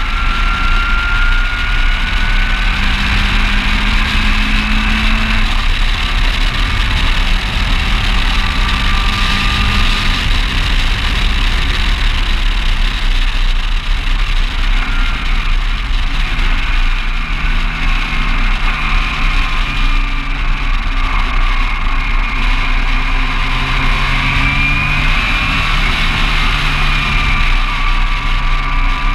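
Ginetta G20 race car engine heard from the open cockpit as it laps a wet circuit, its pitch rising and falling as the driver goes up and down the gears. Heavy wind rumble on the microphone and the hiss of tyres on the wet track run under it.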